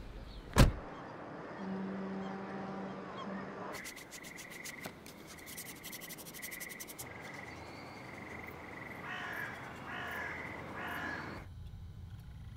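A sharp knock just after the start, then evening outdoor ambience: a low held tone for about two seconds, a fast ticking chirr, and birds calling. Near the end it drops to a quiet room hum.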